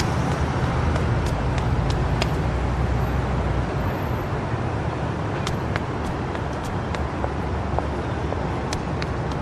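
City street traffic noise: a steady wash of passing cars with a low rumble that eases about four seconds in, and scattered sharp ticks.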